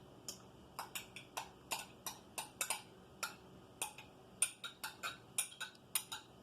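Light, sharp clicks and taps at irregular spacing, about three a second, from kitchen containers and utensils being handled while the Dr. Pepper is got ready to measure.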